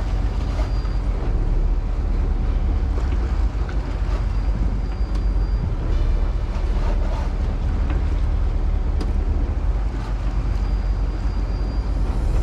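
Sportfishing boat's engine running with a steady low rumble, mixed with wind and sea-water noise.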